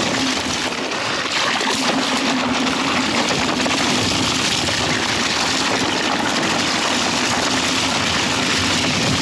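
Outstorm Z80 dual-motor electric scooter riding over a wet, snowy trail: a steady hiss and spray of tyres through slush and puddles, with a faint steady hum underneath.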